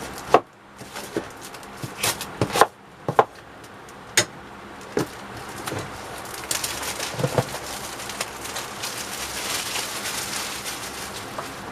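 Cardboard box and packaging being handled and opened: a series of sharp knocks and clicks in the first few seconds, then steady rustling of packaging.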